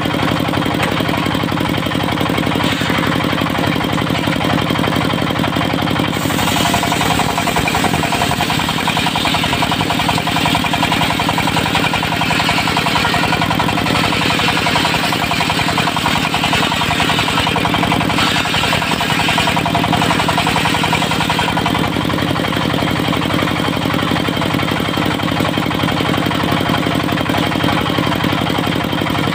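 Dongfeng diesel engine running steadily, driving a circular sawmill blade. From about six seconds in to about twenty-one seconds, a harsher high-pitched rasp joins it as the blade cuts through teak.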